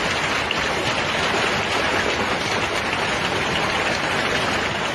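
Heavy hail pelting a swimming pool and lawn: a dense, steady hiss of countless hailstones splashing into the water and striking the grass.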